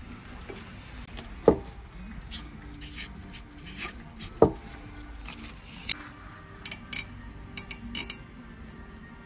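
Metal-on-metal knocks and clicks of measuring tools being handled on a bare crankshaft during journal measurement: two sharp knocks about three seconds apart, then a quick scatter of clicks. Faint background music runs underneath.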